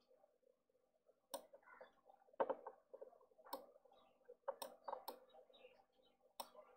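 Computer mouse clicking, about six sharp clicks spaced irregularly roughly a second apart, over a faint steady background hum.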